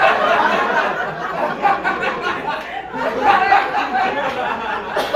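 A studio audience laughing loudly, many voices at once, with a brief dip about three seconds in before the laughter picks up again.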